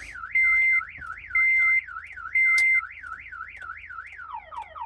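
Car alarm siren warbling up and down about four times a second, switching near the end to fast falling chirps, with a loud steady beep about once a second over the first three seconds. The alarm is sounding during immobilizer key programming, which it is suspected of interfering with.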